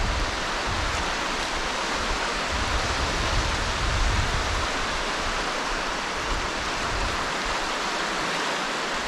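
Steady rushing of wind and small waves at the shoreline, with low gusts buffeting the microphone during the first half.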